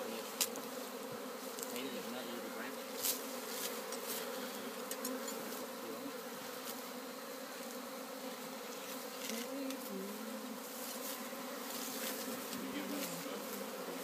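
A swarm of honeybees buzzing in a steady hum around the open wooden hive box they are being coaxed into, with a few light knocks, the clearest about three seconds in.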